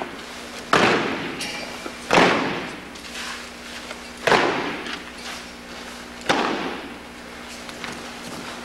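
Boots of a drill squad stamping down together on a gymnasium floor: four sharp, echoing stamps about two seconds apart, then softer marching steps near the end.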